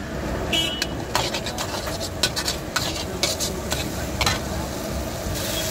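Metal spatula scraping and clanking against a steel wok, tossing hakka noodles in irregular strokes over a steady low rumble. A sizzling hiss rises near the end.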